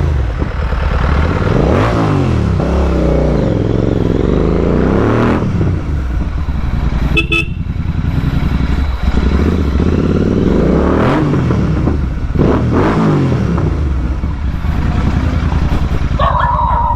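Royal Enfield Continental GT 650's parallel-twin engine running loud through a Red Rooster Performance aftermarket exhaust while being ridden, the revs rising and falling several times as it pulls through the gears.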